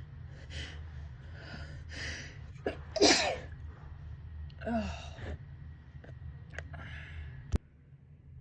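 A person with a head cold sneezing: several quick, gasping in-breaths build up to one loud sneeze about three seconds in, followed by a second, softer sneeze a couple of seconds later. A sharp click comes near the end.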